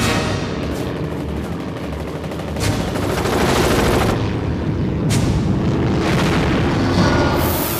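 Sound-effect machine-gun fire from World War I fighter planes in a dogfight: dense, rattling gunfire with several sharp blasts, growing louder a few seconds in.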